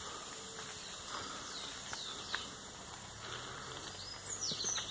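Birds calling in short, falling whistles, a few around two seconds in and again near the end, over a faint steady high-pitched hum.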